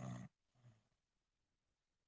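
Snoring: one snore breath ends just after the start, a short faint breath follows about half a second in, then a quiet pause before the next snore.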